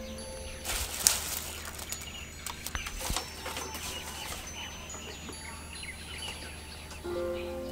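Persimmons being swished and handled in water in a wooden tub: a wet, noisy stretch from just under a second in to about four and a half seconds, with a sharp knock about a second in. Birds chirp and soft music plays underneath.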